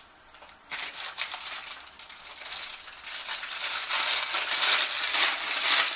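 Plastic bag crinkling and rustling in the hands as a small fountain pump is unwrapped from it. It starts about a second in and gets louder toward the end.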